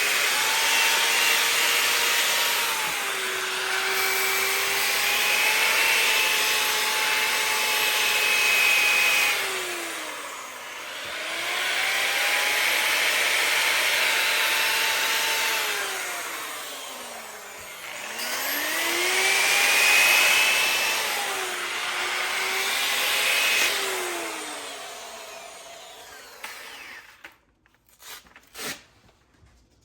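Bauer variable-speed grinder/polisher with a sanding pad sanding a cast iron skillet: a steady motor whine under an abrasive rasp. The pitch sags and climbs back twice, and the sound dies away near the end, followed by a few clicks.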